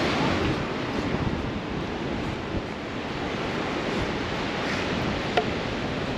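Surf breaking along a sandy beach, a steady rushing noise, with wind buffeting the microphone. A short click sounds once about five seconds in.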